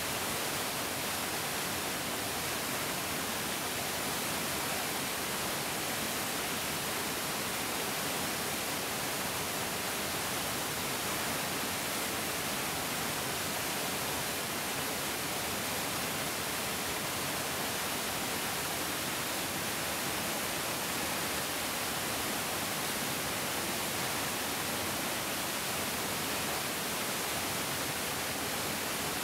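A bigger mountain stream flowing: a steady, even hiss of running water, brightest in the treble, with no changes.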